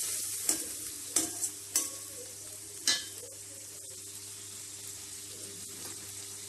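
Ground onion-coconut masala frying in hot oil in a stainless steel kadai, with a steel spatula clicking and scraping against the pan about five times in the first three seconds as the paste is stirred and roasted. After that only a soft, steady sizzle is left.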